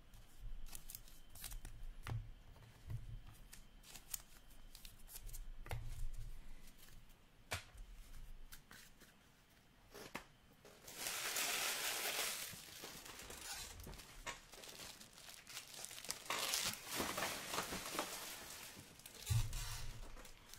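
Foil trading-card pack wrappers being crumpled and torn, with scattered clicks and taps of cards being handled. Two longer stretches of tearing and crinkling come about eleven and sixteen seconds in.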